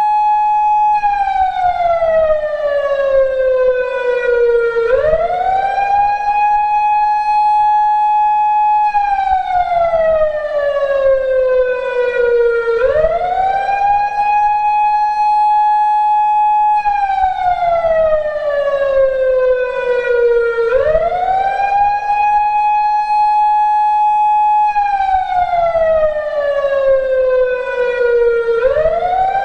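PATLITE SAP-50 siren amplifier sounding an electronic siren wail. The tone rises quickly, holds high for about three seconds, then slides slowly down, repeating about every eight seconds.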